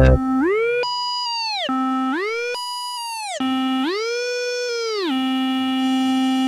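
Synthesizer tone with a stack of overtones, gliding up about an octave and back down twice with a short higher note in between, then holding its low note.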